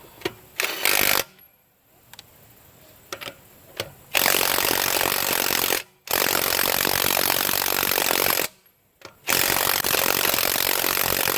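Cordless 1/2-inch impact wrench hammering on a lug nut: a short burst about a second in, then three long bursts of two to three seconds each with brief pauses between. The nut does not come loose.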